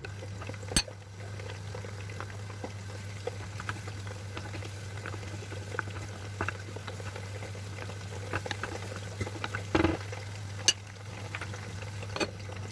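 Kitchen sounds: a steady low hum under scattered light clicks and clinks, with a few sharper knocks, about a second in and again near ten and eleven seconds.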